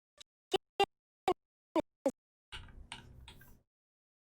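Five sharp, separate clicks of a computer keyboard in the first two seconds, followed by a faint soft noise.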